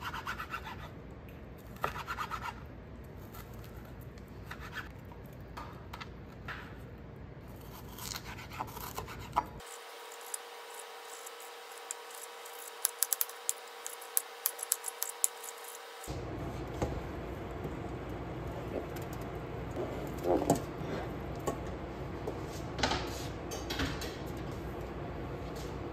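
A chef's knife dicing raw chicken on a plastic cutting board: irregular taps and scrapes of the blade on the board, with a quicker run of sharp chops partway through. After that come a steadier background noise and a few knocks.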